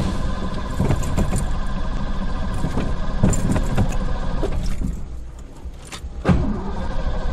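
Automatic car wash machinery running and spraying water over the car, heard from inside the cabin, with knocks and rattles. It eases off briefly about five seconds in, then water hits the windshield again with a sudden loud burst just after six seconds.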